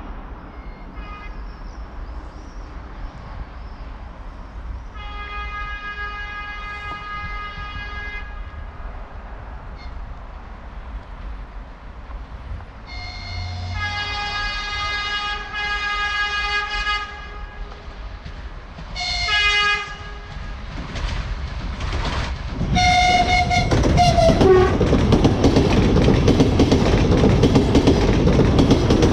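ES1 Lastochka electric multiple unit approaching and sounding its horn in several blasts, some a few seconds long. As the train reaches the spot its last horn note drops in pitch. The loud rush of the passing train follows, with the clickety-clack of its wheels on the rail joints.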